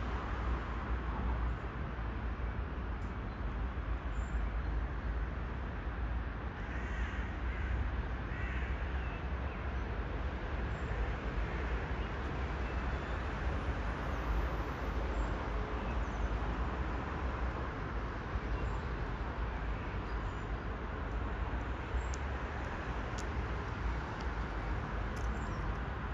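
Steady low rumble and hiss of distant city traffic, with a crow cawing a couple of times about seven to nine seconds in.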